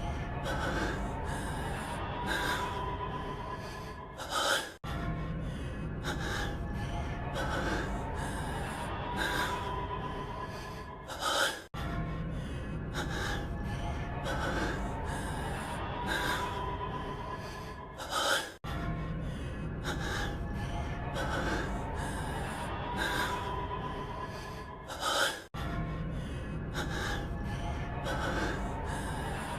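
A man's heavy breathing with several short, sharp gasps, over a steady low background. It is a short clip looped about every seven seconds, with a brief dropout at each seam, four times here.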